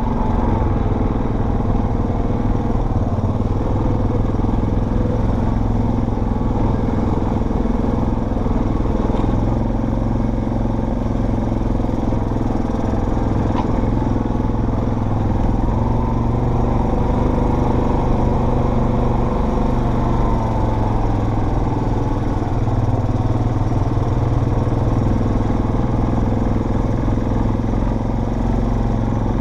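Off-road vehicle engine running steadily under way on a trail, its pitch rising and falling only slightly, with some clatter.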